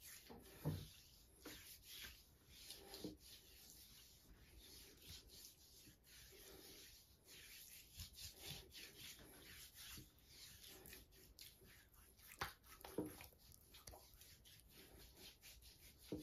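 Faint, irregular rubbing of a hand spreading ginger-powder paste over bare skin, with a few slightly louder brief scuffs about a second in and again a dozen seconds in.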